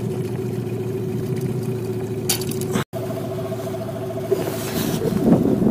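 Boat's small two-stroke outboard motor, a Yamaha 9.9 GMHS, running steadily with an even hum. The sound drops out for an instant about three seconds in.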